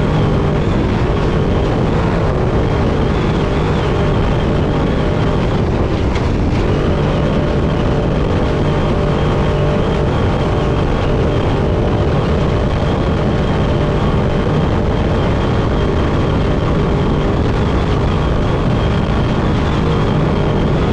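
Off-road race truck driving at speed, heard from inside the cab: the engine runs under load with constant rumble and rattle from the rough terrain, steady throughout.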